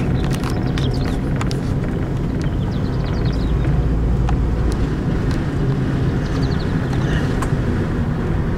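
Open-top tour bus driving along a road: a steady low rumble of engine and road noise, with a few short high chirps now and then.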